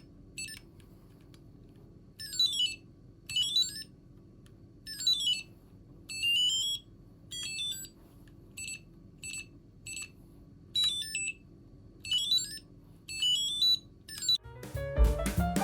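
Sparse electronic background music: short, quick runs of high-pitched chime-like notes, some rising and some falling, about one a second with gaps between, over a faint steady hum.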